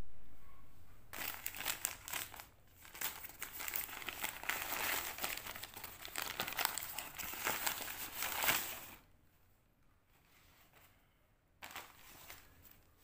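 Paper parcel wrapping being unfolded and torn open by hand: dense crinkling and crackling of the paper for about eight seconds, then a short rustle again near the end. It opens with a low thump that fades over about a second.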